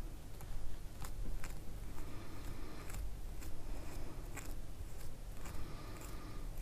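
Glass beads on wire clicking and rustling as beaded wire petals are twisted by hand around a flower's centre: irregular small clicks with faint scraping in between.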